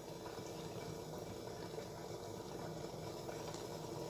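Faint, steady simmering of water in a pot under a glass bowl of melting chocolate.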